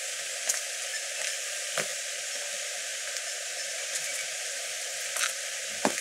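Light rain falling: a steady hiss with a few louder, sharp drop taps at irregular moments.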